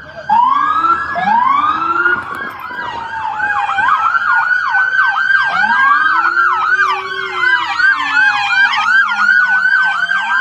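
Several emergency-vehicle sirens sounding at once: slow wails rising and falling, then from about four seconds in a fast yelp pattern of several sweeps a second, with the sirens overlapping each other.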